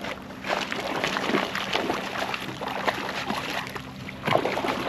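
Water sloshing and splashing with irregular clicks and knocks, over a steady low hum.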